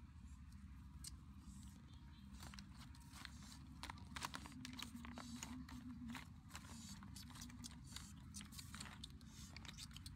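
Irregular small clicks and crunches of a wooden stick prodding roasted snails out of ash, the shells tapping against the stick and each other. The clicks come thickest through the middle and thin out near the end.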